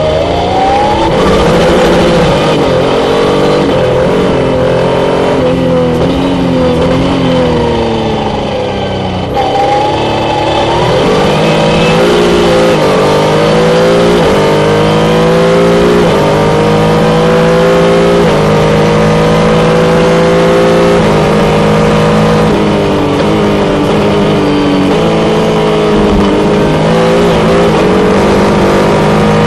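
Jaguar JP-LM racing car's engine heard from on board at speed, revving up through the gears, the pitch dropping back at each upshift. Around eight to ten seconds in it eases off and falls in pitch, then climbs through the gears again.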